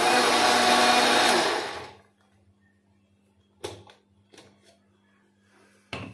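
Electric kitchen blender running, blending mango pulp and curd into lassi; it is switched off and winds down about two seconds in. Two short knocks follow, one near the middle and one near the end.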